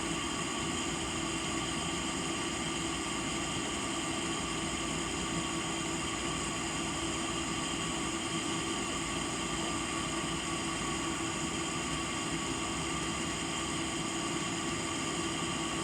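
Steady mechanical hum with several constant tones, unchanging throughout.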